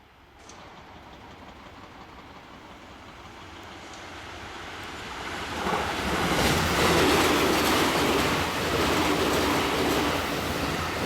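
Electric passenger train approaching and passing, wheels running over the rail joints. It grows louder over the first few seconds and is loud from about halfway through.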